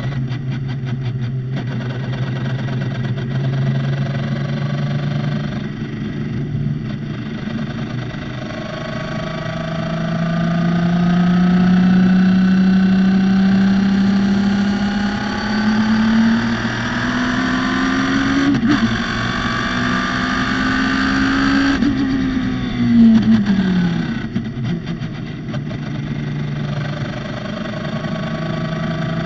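Radical SR3's motorcycle-derived four-cylinder engine at racing revs: the engine note climbs steadily under a long pull, with one sharp upshift about two-thirds of the way in. Soon after, the note drops quickly as the car brakes and downshifts, then holds steady at lower revs.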